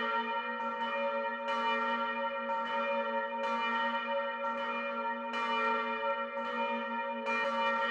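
Two large bells swinging in steel frames, tolling alternately about once a second, each strike ringing on under the next.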